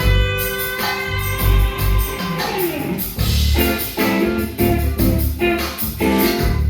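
Live band playing: electric guitar over bass and drums. About two and a half seconds in, a falling glide leads into a steady rhythmic groove.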